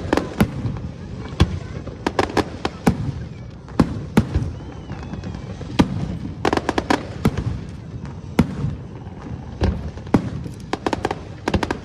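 Aerial fireworks display: shells bursting in irregular quick clusters of sharp bangs and crackles, over a continuous low rumble.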